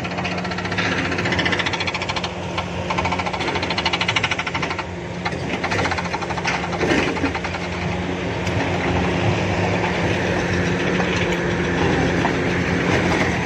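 Kobelco SK480 excavator's diesel engine running steadily under load, with a fine rapid clatter and a few knocks of rock near the middle as the single-shank ripper tears through hard ground.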